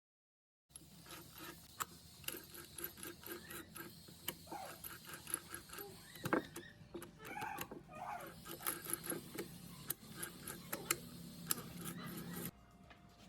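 A run of sharp clicks and clinks with a louder knock about six seconds in, cutting off suddenly near the end.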